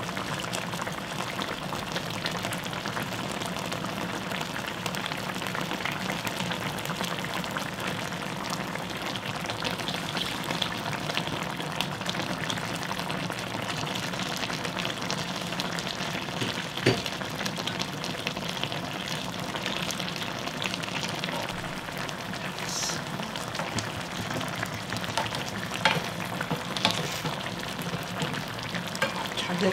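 Mackerel and radish braising in red chili sauce, bubbling and sizzling steadily in a frying pan. A few light knocks of a utensil against the pan come about midway and near the end.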